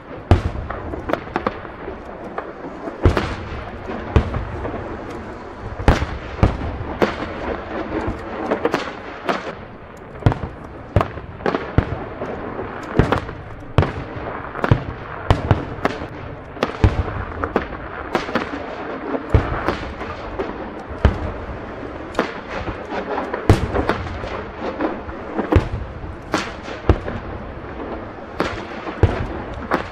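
Aerial firework shells bursting in quick succession, starting about half a second in: a sharp bang every second or so, with a constant crackling hiss between the bangs.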